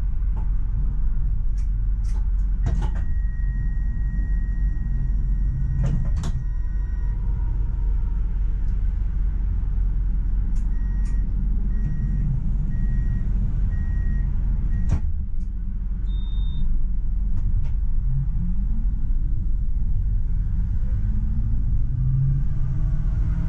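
Tram heard from the driver's cab: a steady low running rumble with a traction-motor whine falling at the start. Clicks and knocks follow, then a steady electronic signal tone and a short run of repeated beeps that end in a sharp clunk, typical of the doors at a stop. Near the end the motor whine rises again as the tram pulls away.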